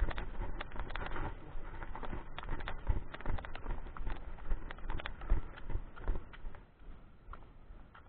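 Footsteps and knocks on concrete steps, a run of irregular sharp clicks and thumps that thins out near the end.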